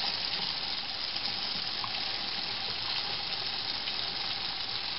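Water running steadily into an infant bath, with water poured from a plastic cup over a newborn.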